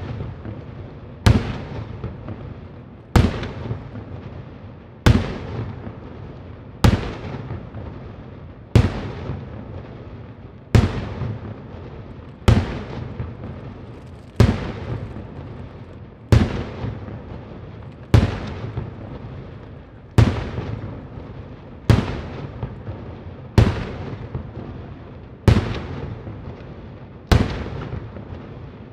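Daytime fireworks: aerial shells bursting with loud bangs at a steady pace, about one every two seconds, each followed by a rolling echo.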